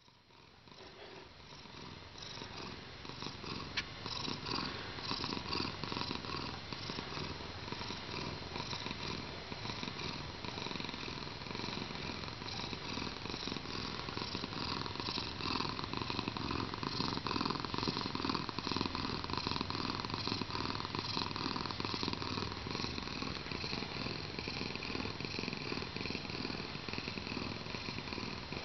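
Domestic cat purring steadily: a contented, relaxed cat. The purr fades in over the first couple of seconds, then runs on evenly.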